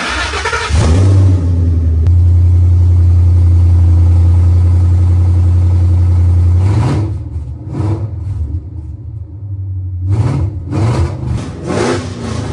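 A car engine running at a steady speed for several seconds, then revved in short, uneven blips from about seven seconds in.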